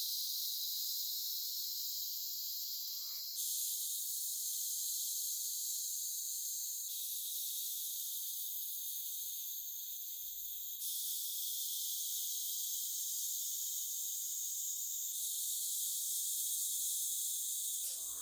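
A steady high hiss, cut into takes of a few seconds each, with a sudden small change in tone and loudness at each cut.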